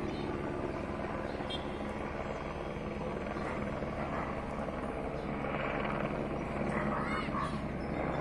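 Police helicopter circling at a distance, its rotor and engine making a steady beating drone.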